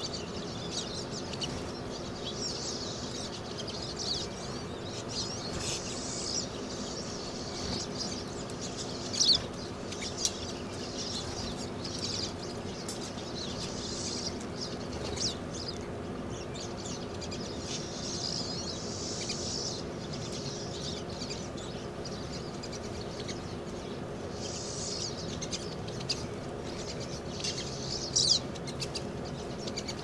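A feeding flock of pine siskins twittering and calling in quick high chirps, with a few louder short bursts about nine seconds in and near the end. A faint steady low hum runs underneath.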